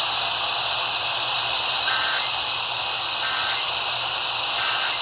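Steady FM radio static hiss. Starting about two seconds in, three short, faint data bursts of Emergency Alert System tones come through about a second apart: the alert's end-of-message code.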